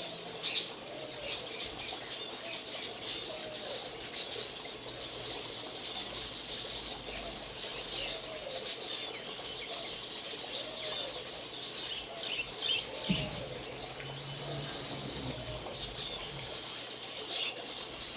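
Many birds chirping and calling at once, with short high chirps throughout and a lower, arched call repeating every second or two.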